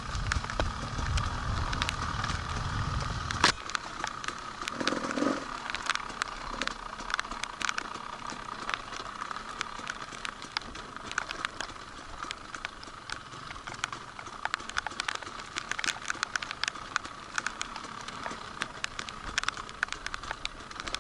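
Motorcycle engine running, cut off abruptly with a sharp click about three and a half seconds in; after that, scattered crackles and clicks.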